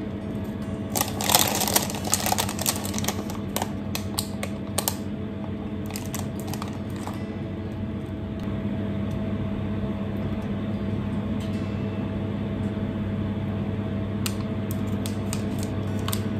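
Spatula scraping and tapping against a glass mixing bowl and a glass loaf dish as thick batter is scooped across, with a busy cluster of clicks about a second in and scattered taps after, over a steady low hum.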